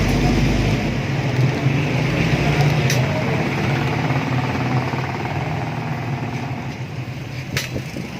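An engine running steadily, a low hum that slowly fades over the second half, with two light clicks.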